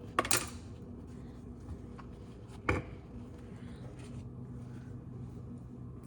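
A few sharp knocks and clicks of things being handled on a kitchen counter, the loudest just after the start and another about two and a half seconds later, over a low steady hum.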